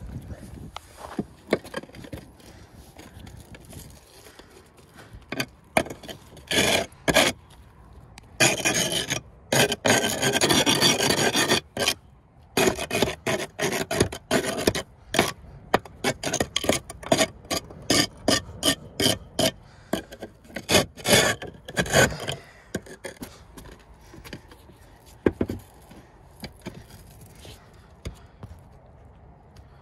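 A steel chisel scrapes out old mortar pointing along lead step flashing. There is one long continuous scrape, then a run of short quick scrapes, about three a second.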